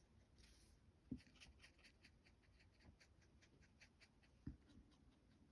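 Faint, rapid scratchy strokes of art materials on rough cotton-rag sketchbook paper, about five a second, with two soft low knocks, one about a second in and one near the end.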